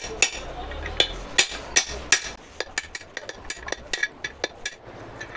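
Hammer striking a steel drift rod to drive a bearing onto a manual gearbox shaft: a run of sharp metallic taps, heavier and spaced out at first, then quicker and lighter from about halfway, stopping shortly before the end.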